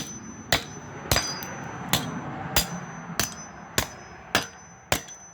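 A toy car being struck hard again and again: about nine sharp blows, evenly paced a little over half a second apart.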